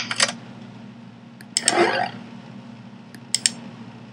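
Sharp clicks from a laptop being operated: two near the start and two more near the end, with a short rustle of handling noise between them. A steady low hum runs under it all.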